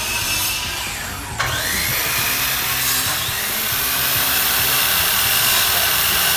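Corded circular saw running and cutting through a wooden board. About a second and a half in, its motor whine rises in pitch as it spins up, then holds steady through the cut.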